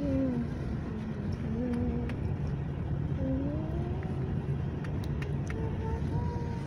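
Steady road and engine noise heard from inside a moving car's cabin, with faint pitched tones that slide up and down, coming and going a few times over it.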